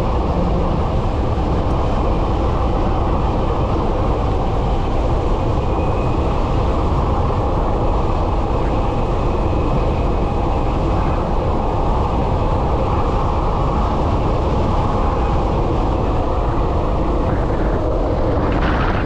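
Steady, loud wind and riding noise on the microphone from a moving high-power e-bike with a QS273 hub motor. A faint high whine comes and goes.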